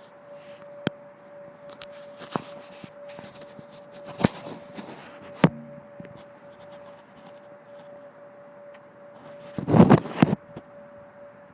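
A faint steady hum at one unchanging pitch, the unexplained noise heard from the sky, under scattered sharp clicks and a loud rough burst of noise about ten seconds in.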